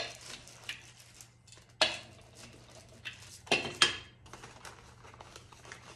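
Sharp knocks and clatters of a rubber brayer and hard tools being handled and set down on a wooden table: one at the start, one about two seconds in, and a quick double knock a little past halfway, over a faint steady hum.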